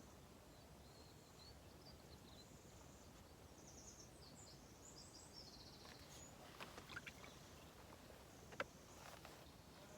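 Near silence with faint, high bird chirps in the first half, then a few light clicks and one sharper click near the end.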